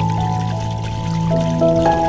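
Calm new-age ambient music: soft held notes changing slowly over a low sustained bass tone, with a faint wash of running water beneath.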